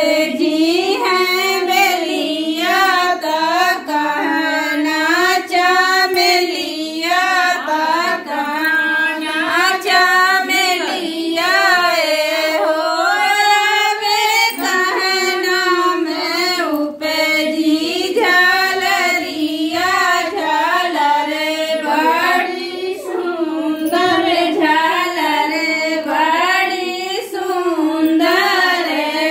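Women's voices singing a continuous song, the melody rising and falling through long held notes.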